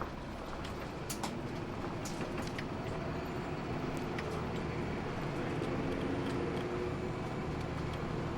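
Interior running sound of a Hino Blue Ribbon II diesel city bus under way: steady engine rumble and road noise with small rattles and ticks from the cabin, the engine note and overall level rising a little as it gathers speed.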